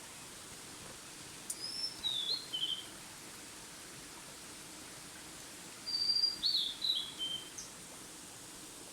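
A songbird singing two short phrases of clear notes that step down in pitch, a few seconds apart, over a steady background hiss.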